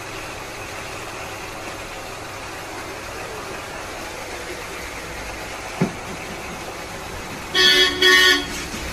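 A horn toots twice in quick succession near the end, each toot about half a second long, over a steady background hiss. A single short knock comes about six seconds in.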